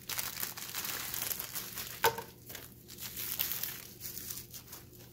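Clear plastic bag and bubble wrap crinkling as they are handled and pulled off a pair of sunglasses. There is a sharp snap just after two seconds in, and then the rustling thins out and fades near the end.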